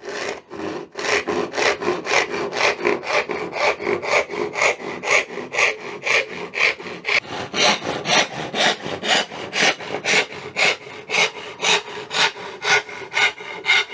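Hand rip saw of about 7 teeth per inch ripping a thin board along the grain: steady, rhythmic back-and-forth strokes, about two a second.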